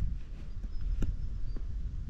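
Wind buffeting the microphone as a steady low rumble, with two faint clicks about one and one and a half seconds in.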